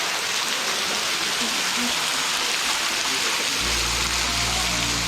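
Small waterfall splashing down with a steady rushing hiss. About three and a half seconds in, background music with a deep bass comes in over it.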